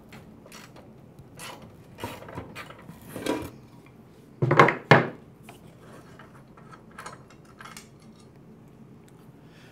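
Handling noises from taking off a push lawnmower's blade: scattered clicks and scrapes of a socket wrench on the blade bolt, with a wooden 2x4 block and the steel blade rubbing against the mower deck. Two loud clunks come about four and a half seconds in.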